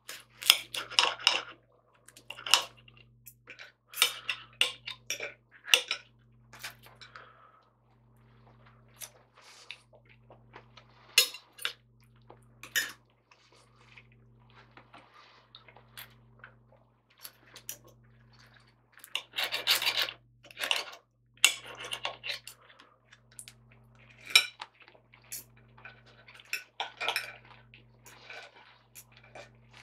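Knife and fork scraping and clinking against a china plate while cutting up a fried breakfast, in irregular bursts of sharp clicks and scrapes.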